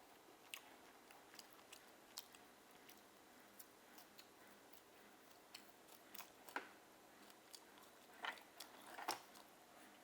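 Faint chewing of steamed oysters: scattered soft wet mouth clicks and smacks, with a few louder ones in the last few seconds.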